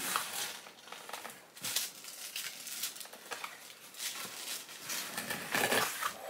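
Packaging wrapping rustling and crinkling as it is pulled open by hand, in irregular bursts that get busier near the end.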